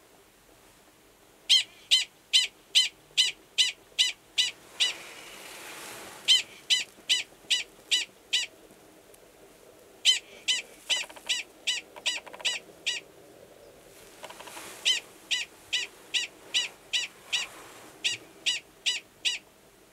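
Male Gunnison's prairie dog giving its mating call: rapid series of sharp, high-pitched barks, about three a second, in four bouts with short pauses between them. The call sounds the same as the species' alarm call but here is a mating call to an estrous female in a nearby burrow.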